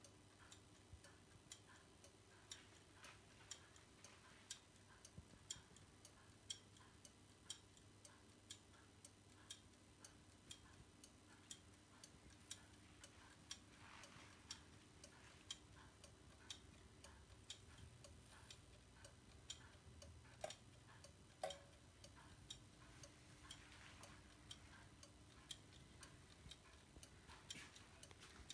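Brillié electric regulator master clock ticking faintly and evenly, about two ticks a second, from its electrically impulsed pendulum and movement.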